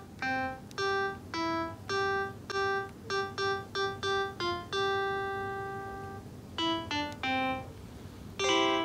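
Background music: a light melody of separate single notes, about two a second, with one longer note fading out about halfway through and a fuller chord near the end.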